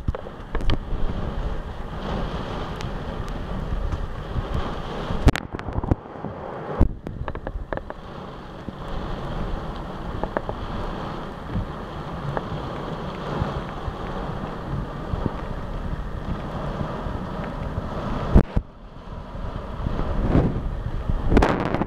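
Storm gusts and heavy rain, with the wind buffeting the microphone in a dense low rumble and a few sharp knocks. The gusts ease briefly about six seconds in and again near eighteen seconds.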